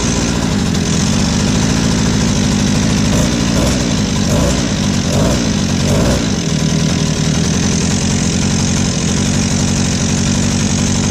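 A 49cc Go-Ped scooter engine running steadily on a newly fitted carburetor and spark plug, with a slight wavering in speed partway through. This shows that the flooding and fouled-plug fault is cured.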